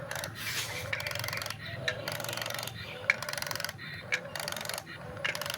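Small geared electric motors of a toy remote-control excavator buzzing in short bursts, starting and stopping every second or so, with a few sharp clicks in between.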